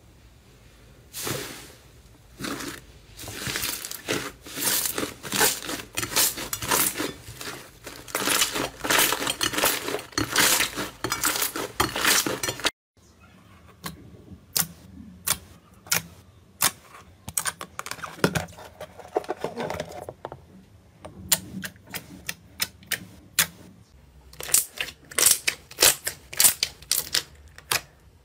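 Hands pressing and squeezing slime, giving a dense run of small sticky pops and clicks. The sound cuts off about halfway through, then starts again with sparser pops that grow thicker near the end.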